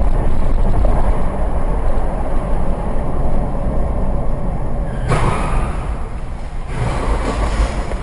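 Steady low rumble of a moving road vehicle. A louder rushing noise starts suddenly about five seconds in, and a second one follows near seven seconds.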